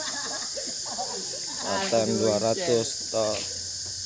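A steady, high insect chorus chirring in the undergrowth. A person's voice speaks briefly about two to three seconds in.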